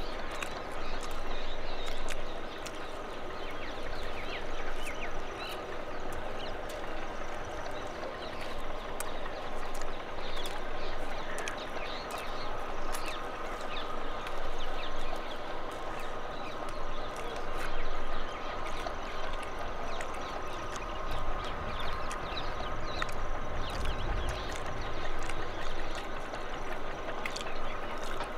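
Tube-well pump running steadily, a hum made of several steady tones, with a low rumble of wind on the microphone between about 21 and 25 seconds in and scattered small clicks throughout.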